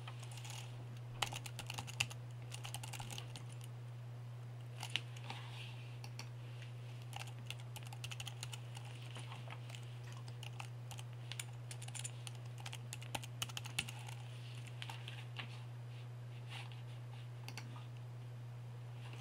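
Typing on a computer keyboard: irregular clusters of keystrokes with short pauses between them, over a steady low hum.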